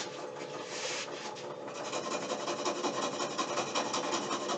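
Homemade scroll saw, driven by a 1440 RPM washing-machine motor, running and then cutting into a half-inch craftwood board. The blade's fast up-and-down stroke makes a steady, rapid rasping that sets in about a second and a half in and grows a little louder.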